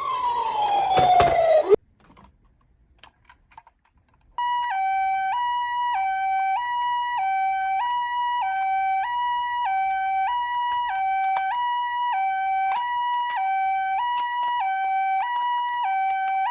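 Ambulance siren: a falling wail that winds down and cuts off about two seconds in. After a short pause, a Japanese-style two-tone "pee-poh" ambulance siren starts, alternating steadily between a high and a low note about every three quarters of a second, with scattered light clicks over it near the end.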